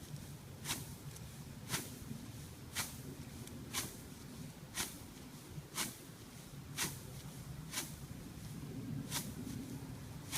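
Homemade board foot crimper being stamped down onto standing cereal rye, each step a short crunching swish of stems being flattened, about once a second. A steady low rumble runs underneath.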